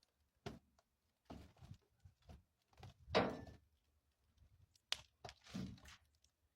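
An irregular series of knocks, thuds and scuffs, the loudest a longer scraping thud about three seconds in.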